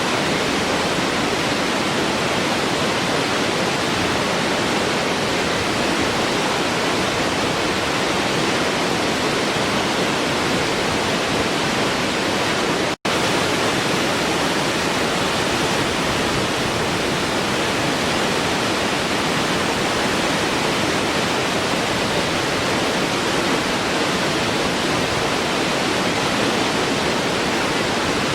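Waterfall rushing steadily, an even white-noise-like roar of falling water, broken once by a split-second gap about halfway through.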